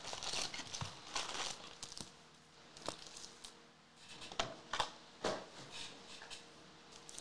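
Foil wrappers of Topps Series 2 trading-card packs crinkling as the packs are handled and shuffled, in a handful of short, separate crinkles, the sharpest about three, four and a half and five seconds in.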